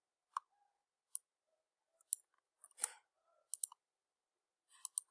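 Scattered clicks of a computer keyboard and mouse: about a dozen short, sharp taps at irregular intervals.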